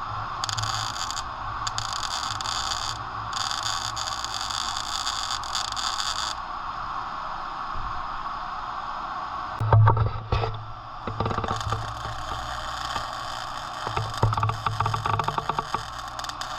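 Welding on thin steel tubing: a steady hiss and hum, with bursts of crackling about ten seconds in and again near the end.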